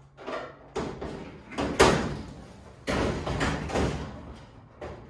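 A 1965 Mustang's hood being lowered and set down onto the front end in a test fit: a series of thumps and knocks, the loudest just under two seconds in, then a cluster of knocks around three to four seconds.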